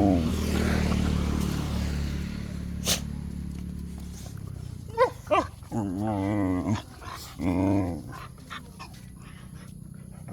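Dogs playing: a low steady growl that fades over the first few seconds, then short yips and two wavering, whining growls about six and seven and a half seconds in.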